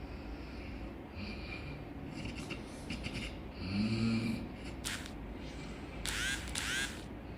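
A person snoring heavily, the breaths coming out as hisses like a bus's air brakes ("cas ces"). There is a deep snore about four seconds in, a sharp hiss a second later, and a long, loud hiss near the end.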